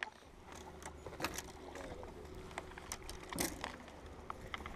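Light, scattered clicks and knocks of a fishing rod and tackle being handled on a boat, over a low steady rumble.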